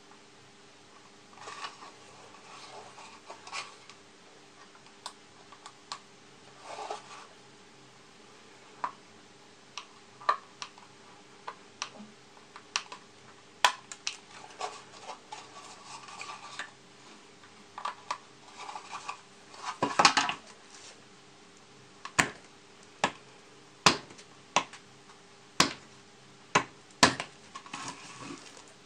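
Dull hobby-knife blade scraping and cutting a white plastic model-kit part in short strokes. Sharp clicks of the blade catching on the plastic come about once a second in the last third.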